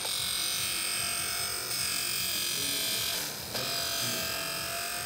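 Steady whir of an electric workshop motor running, a hiss with a thin steady whine; it dips briefly about three and a half seconds in, after which a steadier mid-pitched hum comes through.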